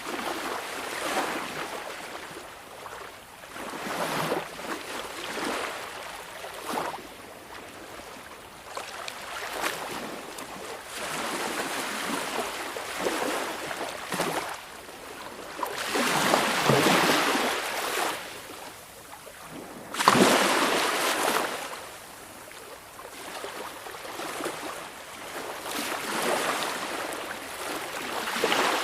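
Small sea waves washing onto the shore, the hiss of each wash rising and falling every few seconds. The loudest surges come about two-thirds of the way in, one starting suddenly.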